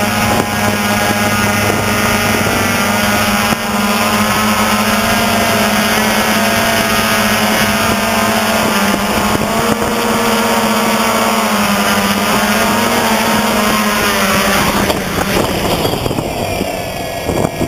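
DJI Phantom quadcopter's motors and propellers, heard from the camera mounted on the drone: a loud, steady buzzing whine in flight. Near the end the drone has landed and the motors spin down, their pitch falling as the sound fades.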